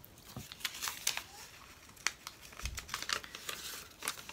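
Crinkling and rustling of a small paper slip being handled, with a scatter of light ticks and one sharper click about two seconds in.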